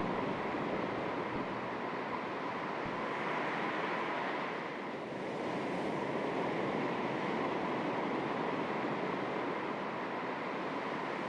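Calm sea waves lapping against the shore: a steady wash of water that swells and eases slowly, with a gentle breeze.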